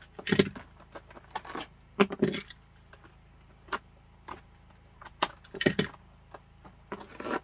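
Cardboard doll box being cut and pried open with a small utility knife: irregular clicks, snaps and scrapes of cardboard and plastic, a few with a duller knock.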